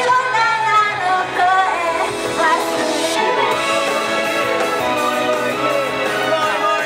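Japanese idol-pop song played over the stage speakers, with female idol singers singing into handheld microphones over a recorded backing track; the sung melody is clearest in the first half, then the accompaniment carries on.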